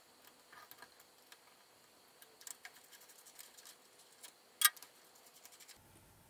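Faint clicks and taps of metal parts and a hand tool as the tool turret and its brackets are taken off a mini CNC lathe's cross slide. A sharp click comes at the very start and a louder single click about four and a half seconds in.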